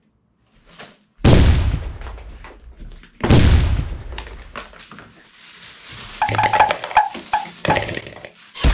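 Objects, among them a glass bowl, being set down on a table right by the microphone: two heavy thumps a couple of seconds apart, then a run of quicker clattering knocks with a ringing clink, and one more hard knock at the end.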